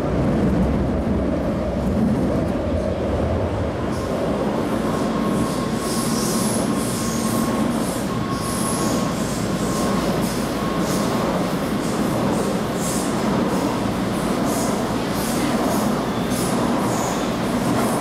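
Taipei Metro C381 subway car running between stations, heard from inside the car: a steady rumble of wheels on rail. From about four seconds in, high-pitched wheel squeals come and go over the rumble.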